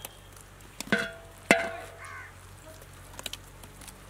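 Two sharp knocks with a brief metallic ring, about half a second apart, from a hand working at a large aluminium cooking pot. A bird calls once about two seconds in.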